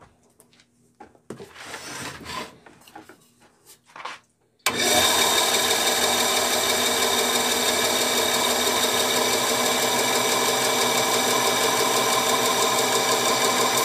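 Craftsman 10-inch direct-drive three-wheel bandsaw switched on after a few soft handling clicks, coming up to speed at once about a third of the way in and then running steadily with a hum made of several steady tones. The owner finds a guide bearing on it a little noisy.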